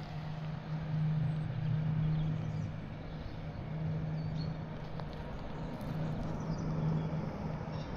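Lockheed C-130 Hercules four-engine turboprop aircraft flying past: a steady low propeller drone that swells and eases a little.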